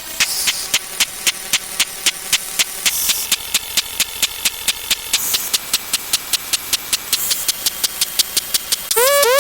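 Rapid electronic clicks in an even rhythm, speeding up from about three to about five a second, one click per number step of a counting sequence. A burst of hiss comes about every two seconds, and near the end a short rising tone sounds.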